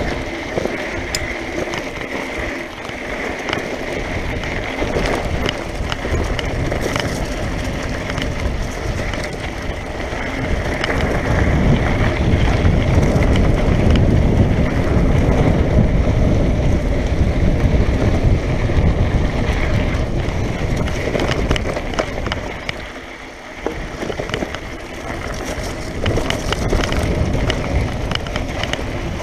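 Mountain bike descending a loose dirt and gravel track: tyres rolling over stones and the bike rattling with frequent clicks over bumps, with wind rumbling on the microphone, heaviest through the middle and dropping briefly near the end.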